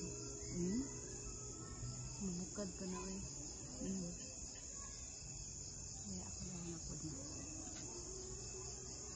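Crickets chirring steadily in a continuous high trill, with faint distant talking coming and going underneath.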